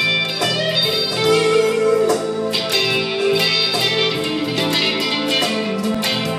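1979 Fender Stratocaster electric guitar played through a Fender Mustang I amplifier: chords and single notes picked in turn, with a note sliding in pitch near the end.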